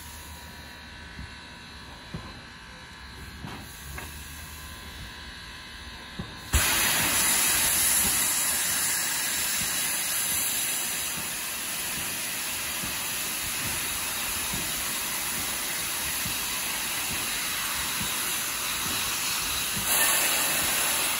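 A standing steam locomotive, quiet at first with a few faint ticks, suddenly lets off steam about six and a half seconds in. The loud, steady hiss runs on and swells briefly near the end.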